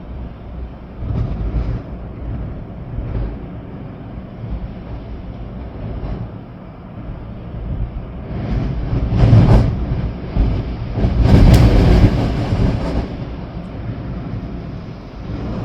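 Storm-force wind gusting and rumbling across the microphone, probably with rain in it; two strong gusts swell up past halfway, the second the longest and loudest, before easing off again.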